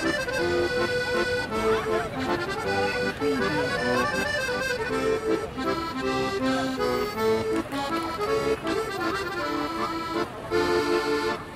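Background music led by an accordion, a melody of held, stepping notes over chords.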